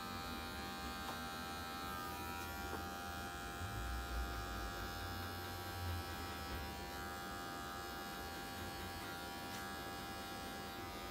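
Electric hair clipper running steadily against the side of the head, blending a low fade; a constant motor hum with a few low bumps about four and six seconds in.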